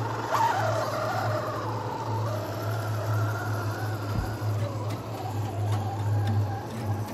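Electric motor and geartrain of an Axial Unimog RC scale truck whining as it drives, the whine rising and falling with the throttle over a steady low hum.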